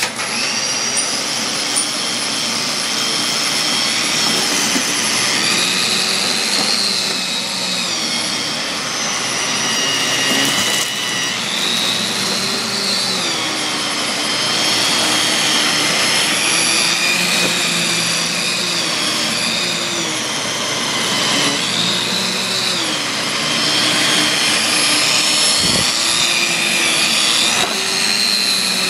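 Dyson DC15 upright vacuum cleaner running continuously, a loud motor noise with a high whine whose pitch dips and recovers every couple of seconds as the load on it changes.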